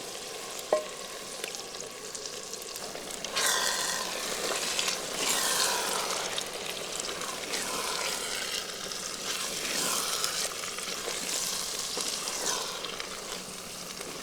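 Spiced oil-and-masala mixture with potatoes sizzling in a pan as it is stirred. A sharp tap comes just under a second in, and the sizzling grows louder and busier from about three and a half seconds.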